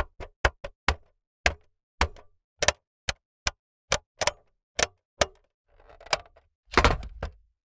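Clock radio's buttons and switches being clicked: a run of sharp, irregularly spaced clicks, some with a duller knock, and a louder handling rustle about seven seconds in.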